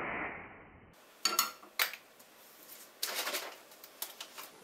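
Cooking oil spray hissing, muffled, onto a nonstick frying pan, then a few sharp clinks and knocks of the pan and can on the gas hob. Another short hiss with clicks follows about three seconds in.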